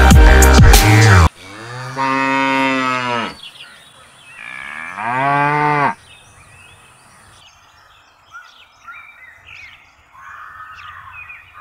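Cow mooing: two long moos, the first about two seconds, the second about a second and a half, with a pause between them.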